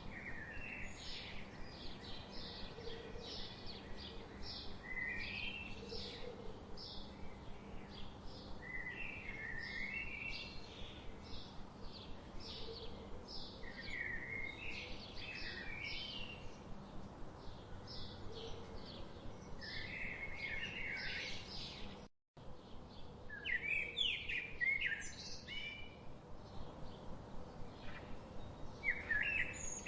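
Wild birds singing: one keeps up short high chirps at an even pace of a few a second, while another breaks in every few seconds with short warbled phrases. The sound cuts out completely for a split second about two-thirds of the way through, then resumes.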